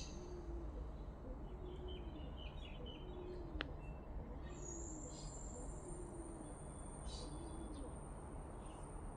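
A bird giving a slow, regular series of low hoots, about one a second, with faint high chirps from small birds. There is a single sharp click about three and a half seconds in.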